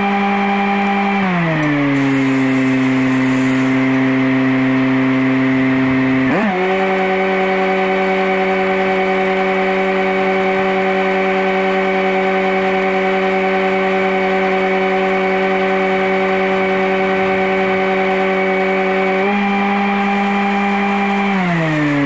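Engine-driven welding machine running, its engine dropping to idle about a second in, revving up to welding speed when the stick-welding arc is struck about six seconds in, and idling down again near the end: the auto-idle following the arc.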